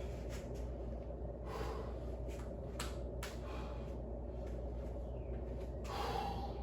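A person breathing heavily, with two loud breaths about a second and a half in and near the end, over a steady low hum and a few light clicks and taps.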